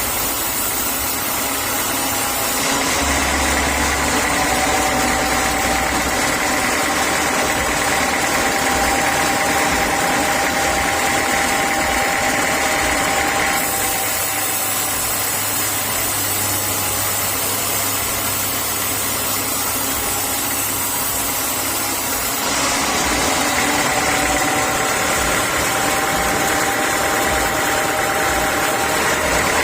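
Sawmill saw machinery running steadily while sawing acacia wood: a loud hum with a high, steady whine. The sound shifts abruptly three times.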